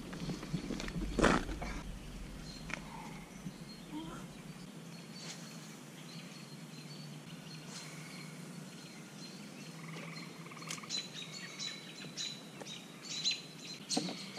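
Birds chirping in short repeated calls, busiest near the end, over faint outdoor background noise. A single sharp knock stands out about a second in.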